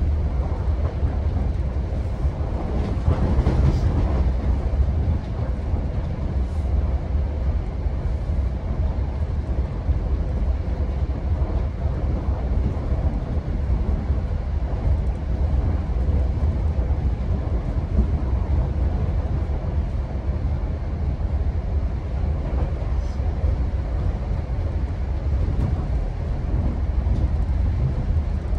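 GO Transit commuter train running at speed, heard from inside the coach: a steady low rumble of wheels on rail, with a brief louder swell about three seconds in.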